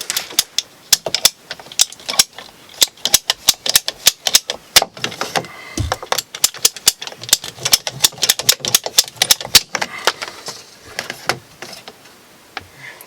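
Rapid, irregular sharp clicks and rattles of plumbing tools and fittings being worked on PEX water pipe, several a second, with a single dull knock about six seconds in.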